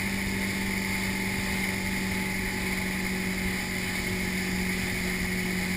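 Motorboat running steadily at speed: a constant engine hum over the rushing hiss of the churning wake water.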